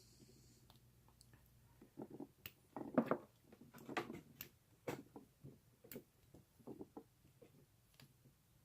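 Lock pick and tension wrench working inside an old Yale wafer padlock: scattered light clicks, scrapes and rattles, busiest from about two to five seconds in. The wafers feel stiff and gunky, as if they need lube.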